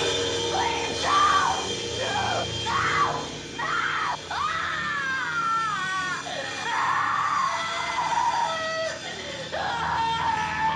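A young woman screaming in terror again and again, short cries at first and then longer wavering ones, over a steady droning film score.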